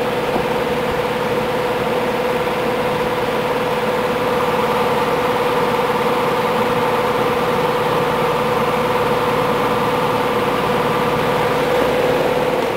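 Vintage Penneys-by-Lakewood 20-inch all-metal box fan running on its high speed: a steady rush of air with a steady motor hum, growing slightly louder over the first few seconds.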